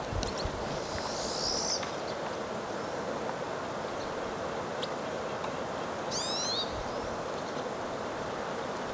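Red crossbills calling: a soft high twitter about a second in, then a quick run of four short downslurred call notes about six seconds in, over a steady rushing background noise.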